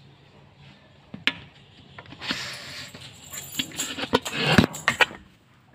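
A single knock, then about three seconds of rattling and clattering with sharp clicks and a metallic jingle, stopping abruptly about five seconds in.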